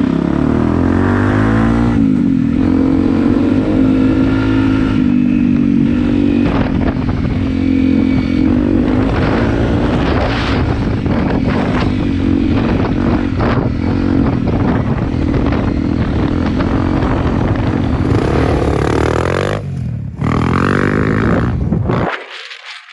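Single-cylinder dual-sport or mini motorcycle engine running while being ridden, its pitch rising and falling with throttle and gear changes, over wind rush and clatter. The sound cuts off abruptly near the end.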